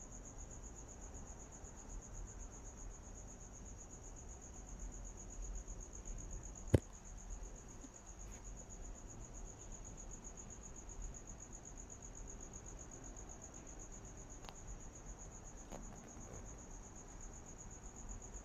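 Crickets trilling in a steady, high-pitched night chorus, with one sharp click about seven seconds in.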